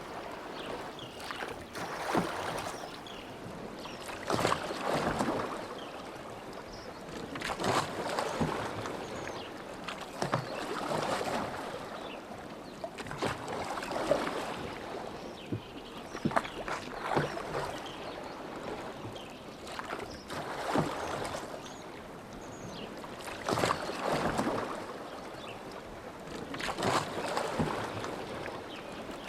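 Oars of a rowboat pulling through lake water in a steady rhythm, a stroke about every three seconds. Each stroke is a swell of splashing with a few sharp knocks.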